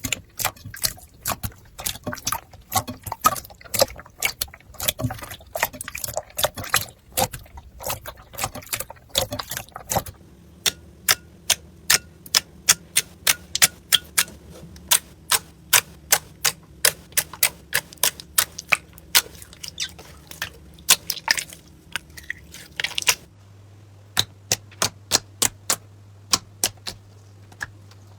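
Slime being squeezed and pressed by hand, crackling and popping. There is dense crackling at first, then sharp pops about three a second from about a third of the way in, thinning out near the end.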